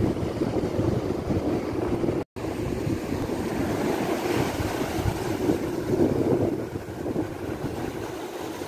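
Ocean surf washing up the beach, with wind buffeting the microphone. The sound cuts out completely for a moment about two seconds in.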